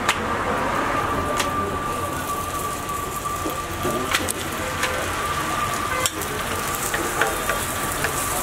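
Flatbreads (roti for a Frankie roll) sizzling on a large flat griddle, with a few sharp clicks and taps as dough is laid down and pressed with a spatula. A thin steady tone runs under the sizzle.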